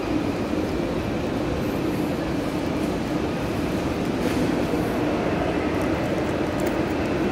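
Steady rumble and hum of a train running in a large, echoing railway station hall.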